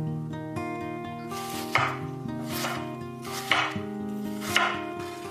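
A kitchen knife chopping on a cutting board, four separate chops about a second apart. Guitar music plays underneath.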